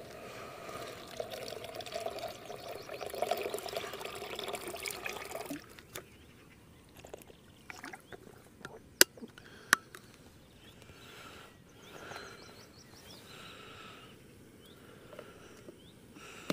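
Liquid being poured into a container for about five and a half seconds, stopping abruptly. A few seconds later come two sharp clicks, then faint chirps.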